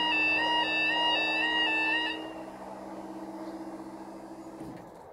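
Level crossing warning alarm sounding a loud two-tone alternating wail, cutting off about two seconds in as the barriers rise. A steady low hum from the barrier mechanism runs on and stops abruptly near the end.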